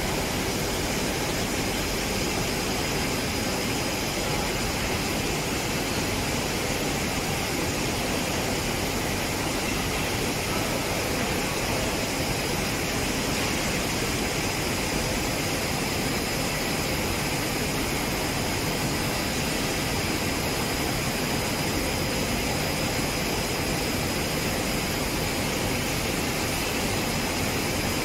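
Steady machinery roar of a POF shrink-film blown-film extrusion line and its film winder running, with a faint steady high whine over it.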